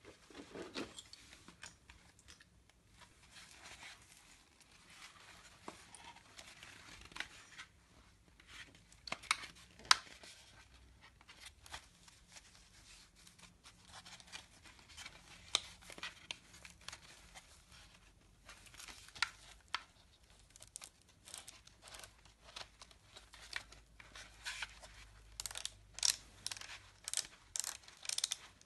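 Hands handling a plastic skate helmet and fiddling with its interior pads and straps: scratching, rustling and many sharp ticks and clicks, thickest near the end.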